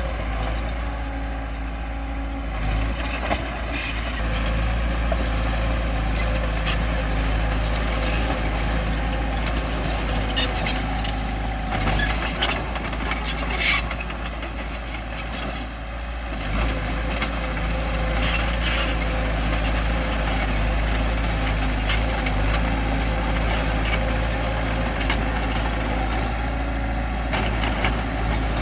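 Bulldozer's diesel engine running steadily, with scattered metallic clanks and one sharp knock about halfway through; the engine eases off briefly just after the knock, then picks back up.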